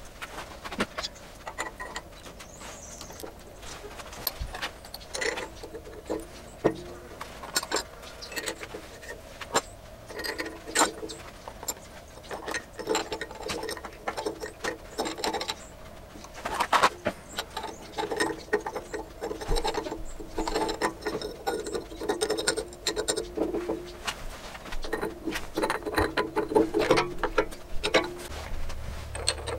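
Metal parts of a lathe headstock clicking, clinking and knocking as they are fitted by hand onto the rear of the spindle: a flanged collar, then a grooved drive pulley. The clicks come irregularly throughout, with short ringing metallic tones among them.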